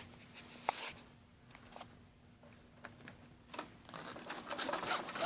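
Handling of the Kirby vacuum's bag: scattered light clicks and rustles, growing into a denser rustle with a zip-like run near the end as the bag is opened.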